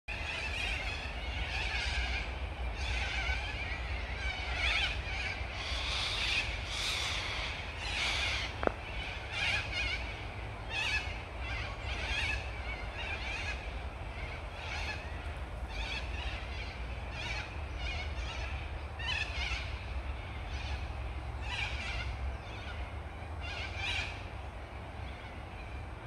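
Birds calling in the tree canopy: many short, high calls, one after another, over a steady low rumble.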